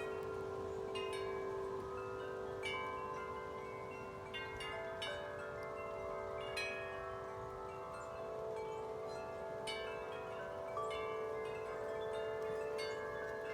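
Wind chimes ringing in the wind: irregular strikes every second or so, their tones ringing on and overlapping.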